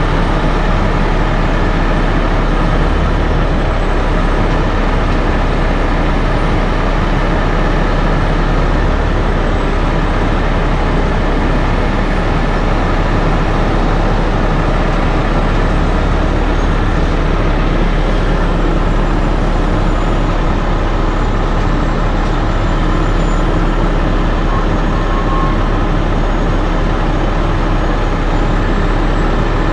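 Heavy rotator wrecker's diesel engine running steadily while its boom works a loaded shipping container on its cables.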